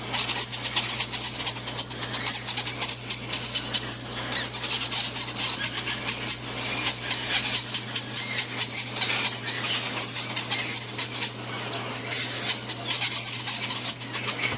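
Newly hatched Quaker parakeet chicks squeaking rapidly and without pause as they are hand-fed from a syringe: the high, thin begging calls of the feeding response.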